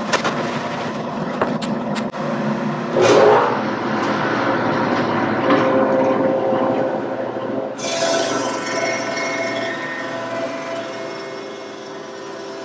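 Thickness planer running and cutting zebrawood boards down to an even thickness, with a louder surge of cutting about three seconds in. From about eight seconds it runs with a steady whine that slowly fades.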